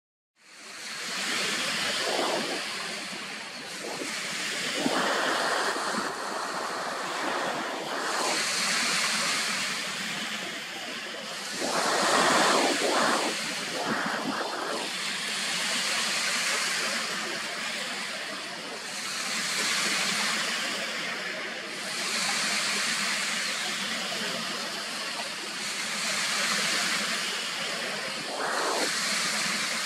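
Small lake waves washing in on the shore, swelling and fading every few seconds, with a few louder rushes about five and twelve seconds in.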